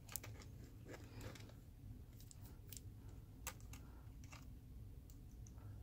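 Faint, scattered small clicks and rubs as a Rode VideoMic's shoe mount is handled and slid onto a cold shoe adapter on a camera.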